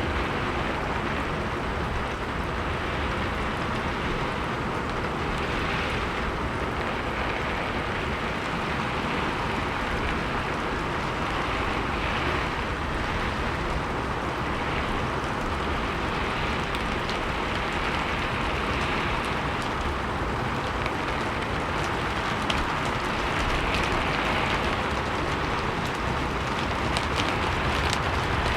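Steady rain falling on a roof, a dense even patter with scattered sharper drop ticks.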